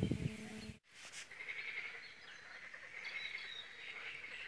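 Steady background chorus of calling animals, with a brief handling rustle at the start and an abrupt cut about a second in.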